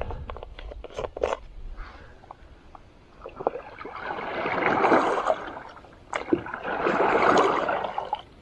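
Small plastic clicks and knocks as a Katadyn BeFree filter cap is handled. Then lake water gurgles into the BeFree soft flask as it is held under the surface, in two long rushes about four and seven seconds in, each building up and then dying away.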